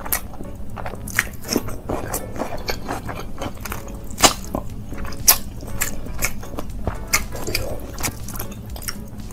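Close-miked eating sounds: chewing and wet mouth smacks with irregular crisp, crunchy bites, as rice, chicken and raw cucumber are eaten by hand. The two loudest bites come about four and five seconds in.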